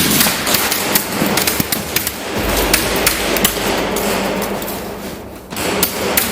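Airsoft guns firing: rapid, irregular sharp cracks and taps of shots and BB hits, with a short lull about five seconds in.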